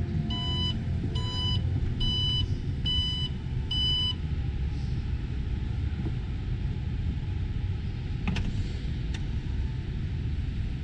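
Power liftgate of an Alfa Romeo Stelvio closing: five short warning beeps, a little under a second apart, as it starts to move, then two sharp clicks near the end as it latches shut. A steady low rumble runs underneath.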